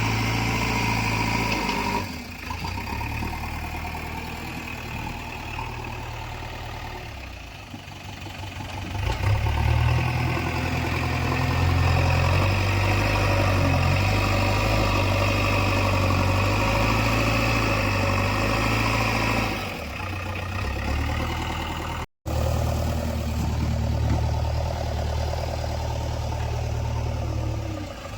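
JCB 3DX backhoe loader's diesel engine running under changing load. It eases off about two seconds in and picks up again around ten seconds in, then eases near twenty seconds. The sound breaks off for a split second a couple of seconds later.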